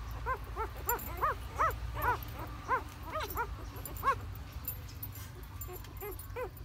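A litter of young puppies whimpering and squeaking. There is a quick series of short calls, each rising and falling in pitch, about two a second for the first four seconds, then a few softer ones near the end.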